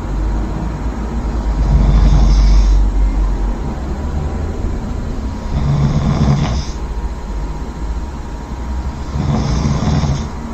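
A person snoring loudly in sleep: three snores about four seconds apart, each with a hissing breath, over a steady low rumble.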